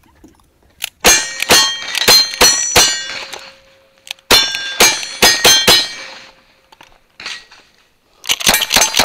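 Revolver shots, each hit ringing off steel targets: a string of five about a second in and another string of five from about four seconds in. Rapid rifle fire with more steel ringing starts near the end.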